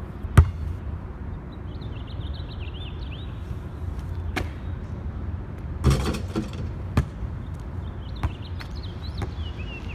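A basketball thudding on an outdoor concrete court: a single bounce just after the start, then more separate thuds from about four seconds in, with a short clatter of several quick hits around six seconds.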